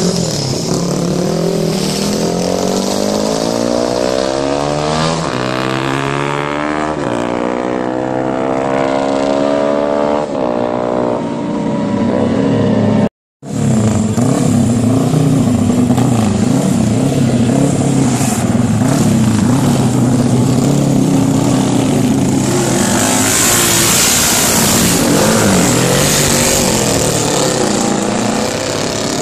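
Several vintage motorcycle engines running as the bikes ride past one after another, their pitch rising and falling as the riders open and close the throttle. The sound cuts out completely for a moment about halfway through.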